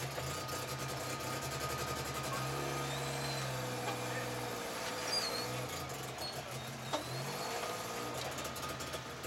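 An off-road vehicle's engine running at low revs, the throttle opening and the pitch shifting for a couple of seconds around the middle before it settles back.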